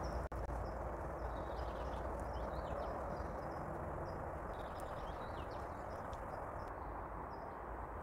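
Small birds singing, repeated short high chirps and falling notes, over a steady background rush.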